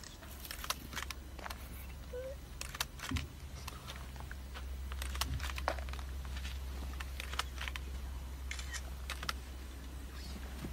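Low steady hum of an open safari vehicle's engine idling, growing a little louder about four seconds in, with many scattered clicks and rustles over it.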